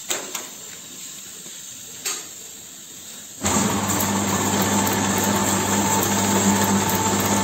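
Gas-oxygen burner flames of an ampoule filling and sealing machine hissing softly, with a few light clicks. About three and a half seconds in, the machine is switched on and runs loud and steady: a motor hum with repeated ticking from the moving chain conveyor.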